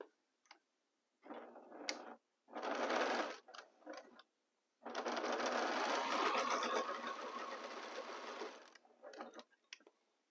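Electric domestic sewing machine stitching a seam in three runs: two short bursts in the first few seconds, then a longer steady run of about four seconds. A few small clicks come between the runs.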